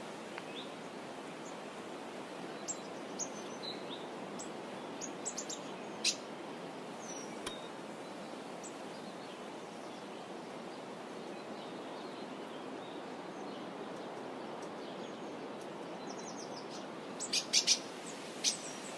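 Scattered short, high bird chirps over a steady background hiss of outdoor ambience, with a quick run of louder chirps near the end.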